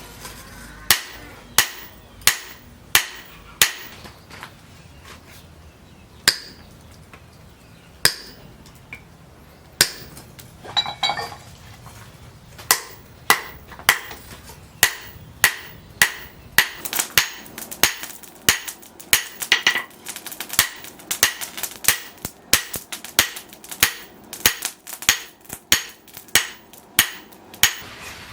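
Hammer blows on leaf-spring steel being forged into a knife, each strike sharp and ringing. Scattered blows at first, then from about halfway a steady run of about two blows a second, with lighter taps in between toward the end.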